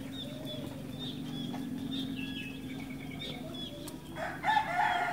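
Cinereous tit (glatik batu) calling, a quick run of short high notes. About four seconds in comes a louder, lower-pitched burst of calls.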